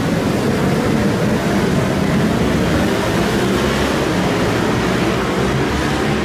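A field of racing motorcycles accelerating away from the start of an endurance race, many high-revving engines running together in a loud, steady roar as the bikes stream past.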